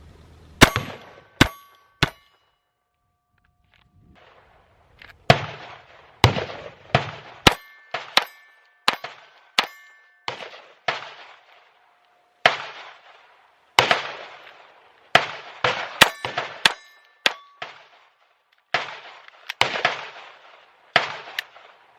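Glock 44 .22 LR pistol firing about thirty sharp, cracking shots: three near the start, then after a pause of a few seconds a steady string, sometimes several shots a second. A metallic ringing hangs after several of the shots.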